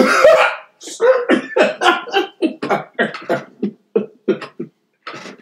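A man laughing hard: a loud burst at the start, then a quick run of short 'ha' pulses, about four a second, that trail off near the end.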